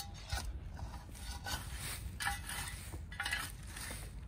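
Pointed shovel scraping and digging into dry pine needles and dirt, four rasping strokes about a second apart.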